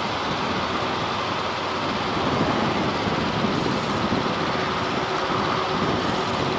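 Steady, distant jet noise from a B-2 Spirit bomber's four General Electric F118 turbofans as it comes in on final approach, an even hiss with a low hum under it.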